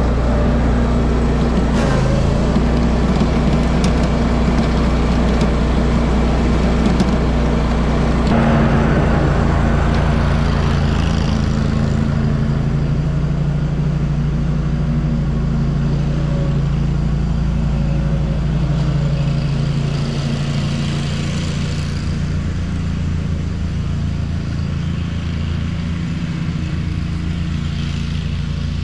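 Walker riding mower's engine running steadily, easing a little in level over the last third.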